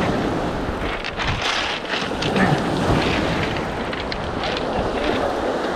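Wind buffeting the microphone over surf washing onto a pebble beach, a steady rushing noise with a few short clicks scattered through it.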